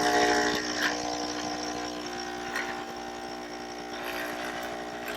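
De'Longhi EC155M espresso machine's vibratory pump buzzing steadily as it pushes water through the tightly packed grounds to pull a shot of espresso.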